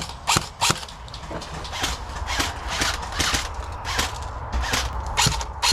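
Airsoft guns firing single shots: about a dozen sharp clicking pops at uneven intervals.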